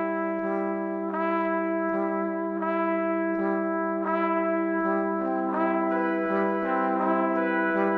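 Background music of slow, sustained chords over a held low note, with new notes coming in every second or so.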